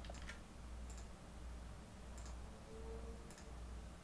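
A few quiet computer mouse clicks, spaced out, over a faint low hum.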